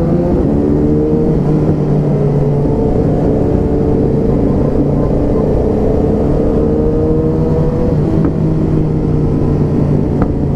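Motorcycle engine running under way, its note climbing slowly and easing off about eight seconds in, with wind rumble on the helmet-mounted camera's microphone.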